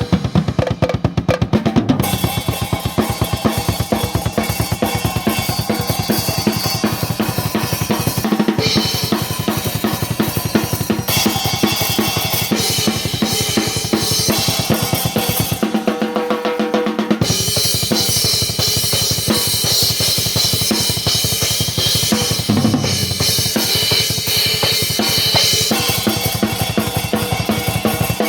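Acoustic drum kit played in a fast heavy-metal groove: rapid bass drum strokes under snare hits and ringing cymbals. The bass drum drops out briefly about halfway through.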